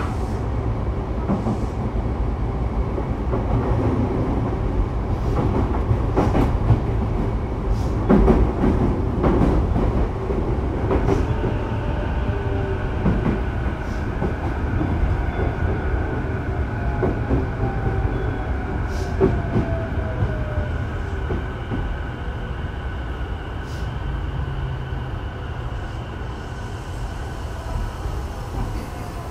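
Cabin running noise of a Sotetsu 12000-series electric train: a steady rumble of wheels on rail with scattered clicks over the rail joints. From about halfway a motor whine joins in, falling in pitch, and the noise eases off as the train brakes toward a stop.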